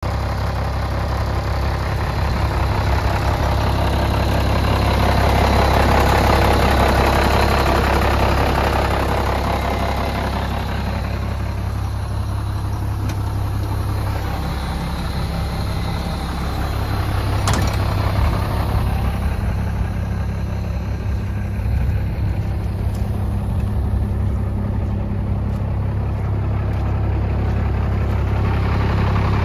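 International DT466 inline-six diesel in a 1988 International S1900 truck, idling steadily. It grows louder about five seconds in, then eases back.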